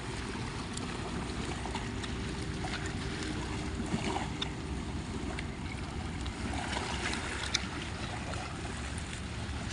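A hand swishing and digging through shallow muddy water and shell gravel while feeling for clams, with small splashes and clicks, over a steady low rumble.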